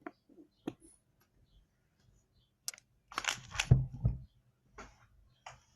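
Handling noises as dish soap is squeezed from a plastic bottle into the slime mixture: a few sharp clicks, then a busier cluster of knocks and rustling about three seconds in.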